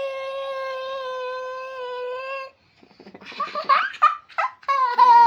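A toddler's voice holds one long, steady wailing note that breaks off about two and a half seconds in. After a short pause it goes on in short, uneven cries.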